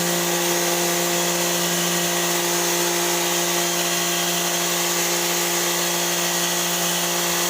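Electric pressure washer running, a steady motor-and-pump hum at one unchanging pitch under the loud hiss of its water jet spraying.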